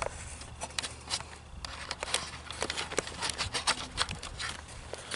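Irregular light clicks and knocks from lawn mower parts being handled, a few to several each second, over a faint low hum.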